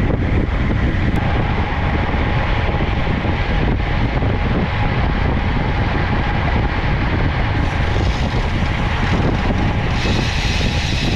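Steady wind rush on the microphone with road noise while riding a bicycle at speed.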